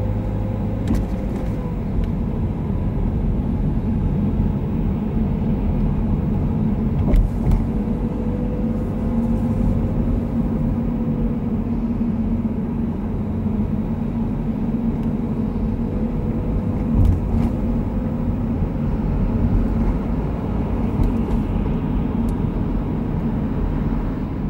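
A moving car's road and engine noise heard from inside the car: a steady low rumble with a faint hum, and two brief knocks, about a third of the way in and again about two-thirds in.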